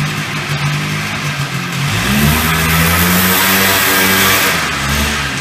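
Polaris two-stroke ATV engine revving up about two seconds in and held at high revs for a couple of seconds while the tyres spin on the concrete floor in a burnout, then dropping back near the end.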